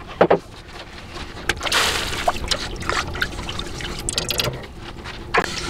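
Honey-and-vodka mixture trickling and splashing in a stainless steel pot, with several short metal clinks.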